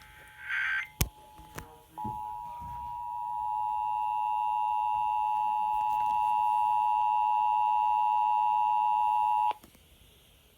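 Emergency Alert System attention signal: the dual-tone 853 and 960 Hz alarm, held steady for about seven and a half seconds and then cut off abruptly, announcing an emergency broadcast. It is preceded by a brief high-pitched burst and a click.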